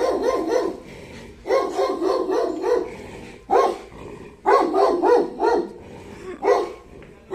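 A dog barking in quick runs of several barks, with short pauses between the runs and a last lone bark near the end.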